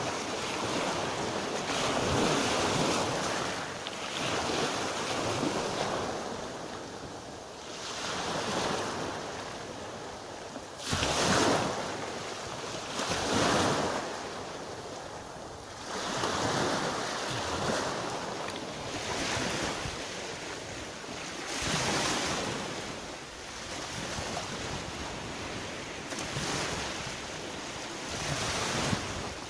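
Black Sea surf: waves breaking and washing up the shore, swelling and falling away every few seconds.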